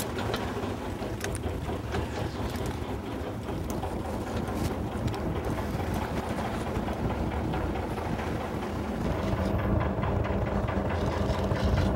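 Fishing boat's engine running steadily at low speed under wind and water noise; a steadier hum joins about nine seconds in.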